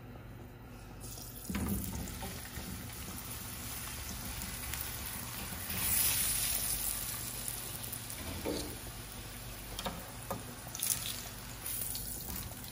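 Paratha frying in oil on a hot flat iron griddle (tawa): a steady sizzle that comes in about a second in and swells around six seconds, with a few soft knocks and scrapes as the flatbread is handled and turned.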